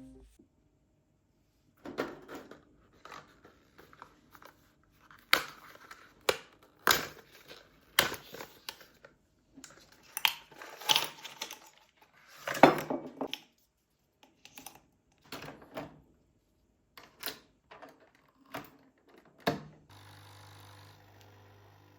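Everyday handling sounds in a small room: an irregular series of sharp clicks, clinks, taps and rustles as objects are picked up, set down and moved. A faint steady hum starts near the end.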